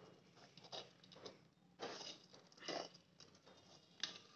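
Faint, irregular rustling and scraping of a spoon stirring puffed rice in a steel pan, coming in a few short bursts.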